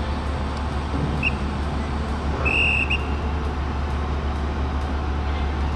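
Steady low drone of a ferry's engines running. A short high whistle tone comes about a second in, and a longer one about two and a half seconds in.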